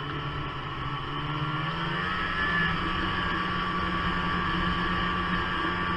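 Snowmobile engine running under way along a trail, its pitch stepping up about two seconds in and then holding steady. The sound is muffled by a waterproof camera housing.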